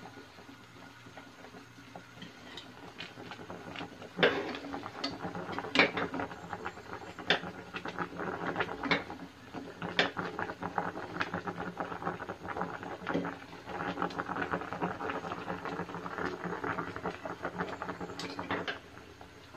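Pork belly frying in a nonstick pan, its fat and liquid crackling and spitting. The crackle thickens into dense popping about four seconds in, with louder sharp pops scattered through it, and drops away abruptly near the end.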